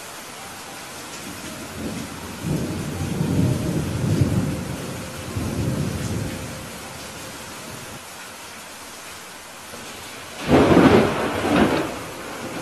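Steady rain with thunder rolling low from a couple of seconds in, then a louder thunderclap near the end.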